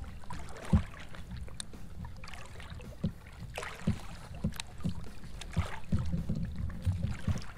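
A spotted bay bass being netted beside a float tube: water splashing and dripping from the landing net, with scattered knocks of the net and gear against the tube over a steady low rumble. A sharp knock under a second in is the loudest sound.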